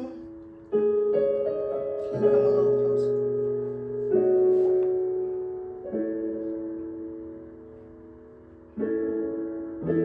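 Background music of slow, soft piano chords. Each chord is struck and left to ring and fade, and a new one comes every two seconds or so.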